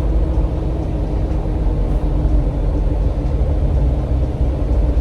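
Steady rumble of a Jeep Wrangler's V6 engine and its mud tires, heard from inside the moving vehicle at low speed.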